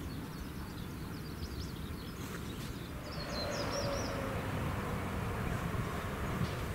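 Outdoor ambience: a steady rumble of distant road traffic, with a few faint bird chirps near the middle.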